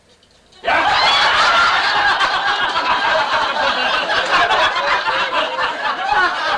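Audience laughter: a room full of people suddenly bursts out laughing under a second in and keeps laughing.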